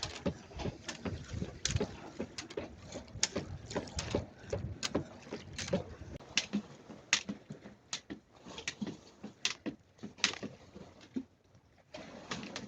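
Jump rope slapping the floor in a loose rhythm, a sharp tap roughly every half to one second.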